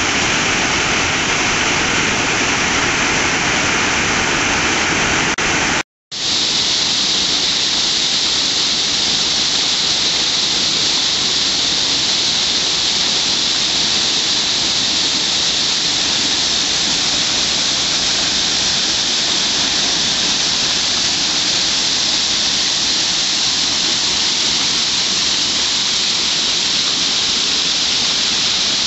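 Waterfall, water falling and rushing in a steady, loud noise. It cuts out for a moment about six seconds in and comes back with less low rumble and more hiss.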